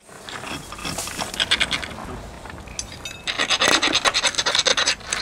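Rocks scraping and clattering: a dense run of rapid clicks and gritty scratching that grows louder and busier about three seconds in.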